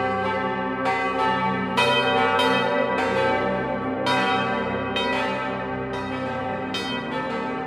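Several church bells pealing together, new strikes coming roughly every half second to a second over the tones of the earlier ones ringing on.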